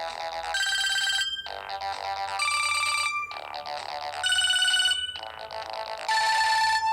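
A Samsung GT-E1205T mobile phone ringtone playing: a synthesized electronic melody in four short phrases with brief gaps between them, each phrase holding one high note.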